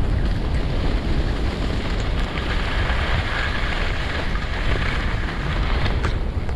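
Wind buffeting the microphone as a skier moves downhill, a steady low rumble, over the hiss of skis gliding on groomed corduroy snow.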